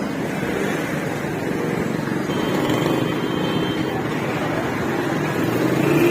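Steady, even background noise with no speech.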